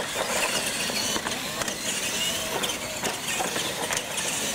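Radio-controlled monster trucks racing on concrete: small electric motors and gearboxes whining, the pitch sliding up and down with speed, with a few short knocks as the wheels hit the obstacles.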